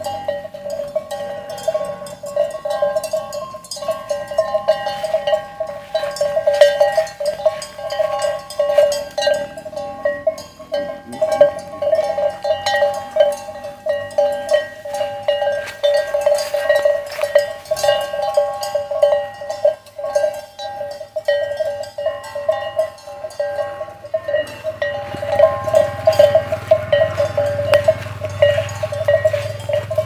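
Cow's neck bell clanking over and over at an uneven pace as the animal moves, each strike ringing at the same bright pitch. A low rumble comes in near the end.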